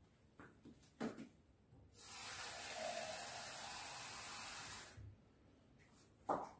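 Kitchen tap running steadily for about three seconds, filling a glass jug with water, then shut off abruptly. A few light knocks come before it and a sharper clunk near the end.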